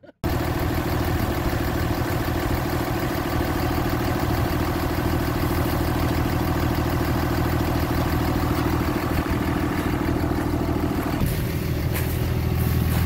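Turbo Cummins diesel engine of a Dodge Ram 3500 pickup idling steadily, its tone shifting about eleven seconds in.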